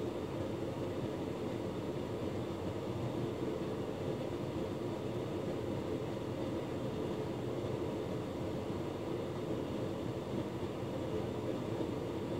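Hotpoint Ultima S-Line tumble dryer running: a steady hum of motor and fan as the drum turns.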